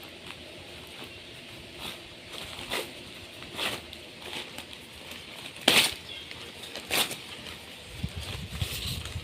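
Rustling and crinkling as wrapping and plants are handled during unboxing, with a few sharper crackles, the loudest about six seconds in. A low rumble of handling comes in near the end.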